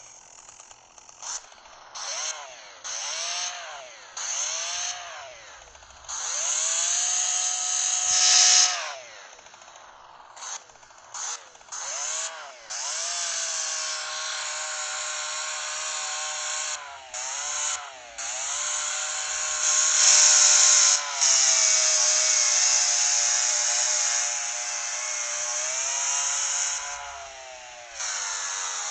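100cc chainsaw engine being revved: short throttle blips that rise and fall in pitch, then long stretches held at high revs, loudest about two-thirds of the way through.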